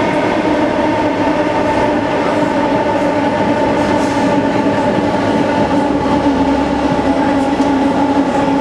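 Kawasaki C151 metro train running between stations, heard from inside the car: a steady rolling rumble of the train, with a steady hum.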